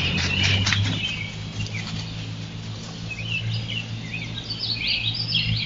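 Woodland birds chirping, a quick run of short high notes that grows busier in the second half, over a steady low hum. A few clicks and rustles sound in the first second.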